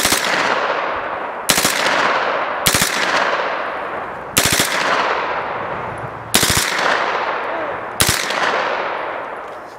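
HK MP5 submachine gun firing on full auto in six short bursts of a few rounds each, one every one to two seconds. Each burst is followed by a long echo that dies away.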